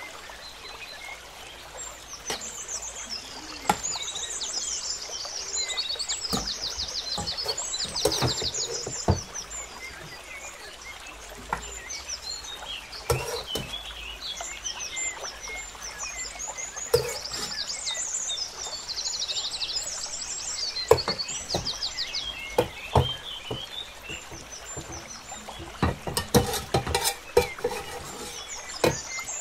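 A metal spoon clinking and scraping against cooking pots as chicken curry is spooned onto layered rice, with repeated sharp taps. Bursts of high, rapid chirping trills are heard behind it.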